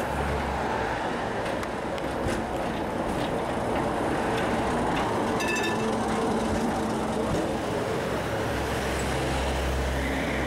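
Vintage electric tram passing close by on street rails, its wheels and motor rumbling amid steady city traffic noise, with a brief rapid ringing about halfway through.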